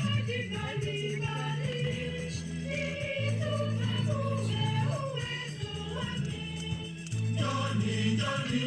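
Background music: a choir singing a melody over held low bass notes.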